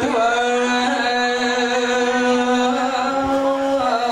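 Male voice chanting Khmer smot, the melismatic Buddhist recitation, into a microphone: one long held note that shifts pitch near the end.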